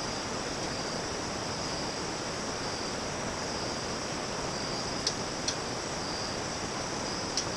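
Crickets chirring in a steady high-pitched band, with a few sharper chirps about five seconds in and near the end, over a steady even hiss.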